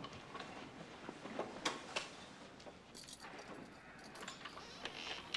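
Handcuffs clinking and a person shuffling as they move: scattered light clicks and knocks, two sharper ones about a second and a half and two seconds in.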